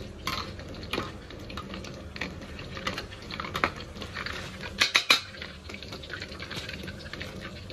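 A steel ladle clinking and scraping against a perforated steel skimmer and wok as it knocks apart and lifts deep-fried battered pork pieces, over the steady sizzle of the hot oil. Scattered sharp clicks, the loudest few close together about five seconds in.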